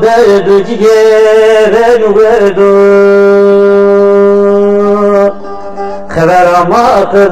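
A man singing a Turkish song over instrumental accompaniment, with wavering ornamented phrases and a long held note in the middle. The sound drops briefly about five seconds in, then the voice rises again in a wavering phrase.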